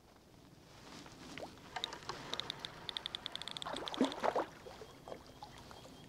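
Birds' wings beating: a fast, even run of wingbeats, about seven a second, then a louder rush of noise about four seconds in.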